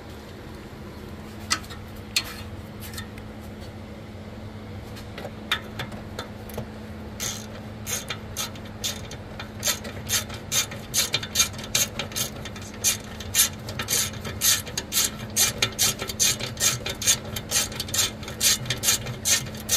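Quarter-inch-drive hand ratchet with a swivel 8 mm socket clicking as it runs down transmission oil pan bolts. A few scattered clicks at first, then quick, steady ratcheting strokes from about a third of the way in.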